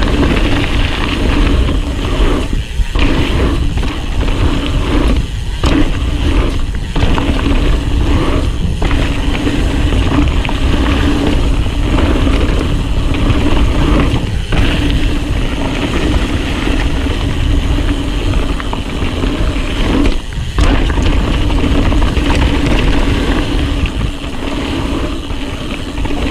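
Trek Fuel full-suspension mountain bike riding fast down a dirt singletrack, heard through a small action camera: loud, steady wind rumble on the microphone mixed with tyre noise on the dirt and the bike rattling, broken by a few brief lulls.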